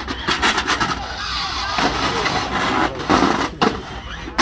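Radio-controlled demolition-derby cars driving, scraping and knocking against each other and the wooden arena boards, with many short knocks.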